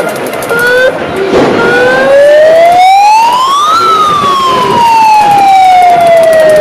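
A siren giving one slow wail: its pitch rises smoothly for about two seconds, peaks mid-way, then slides slowly back down. A few short steady notes come before it in the first second or so, over crowd noise.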